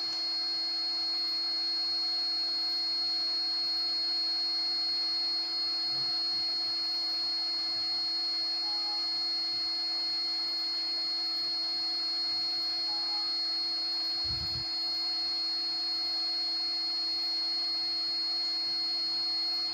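800 W water-cooled CNC router spindle running at a steady speed: an even whine made of several held tones, from a low hum up to a high pitch. A brief low thump about two thirds of the way through.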